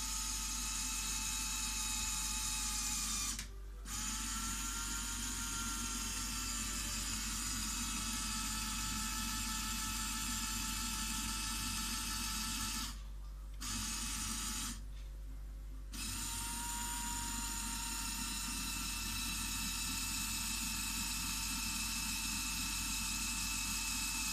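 LEGO Technic electric motors driving the steering gear train of a multi-axle model carrier: a steady whine with gear chatter. It stops briefly about three seconds in and twice more around thirteen to sixteen seconds in, each time starting up again with a slight rise in pitch.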